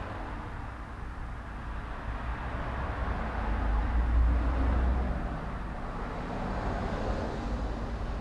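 A low, broad rumble like a vehicle going by outdoors, swelling to its loudest about four seconds in and then fading.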